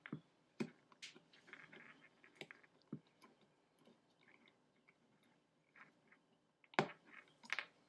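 Faint scattered clicks and scrapes of an Allen key turning screws and small metal parts being handled on a GoG eNVy paintball marker, with a couple of sharper clicks near the end.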